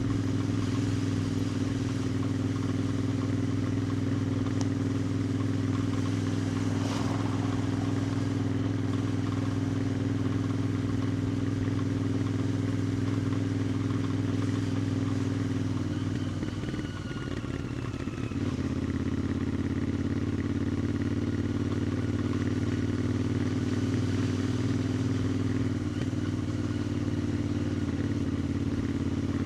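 A 2021 Royal Enfield Interceptor 650's parallel-twin engine and exhaust run steadily at cruising speed. A little over halfway through, the sound eases off briefly, then comes back at a slightly lower pitch.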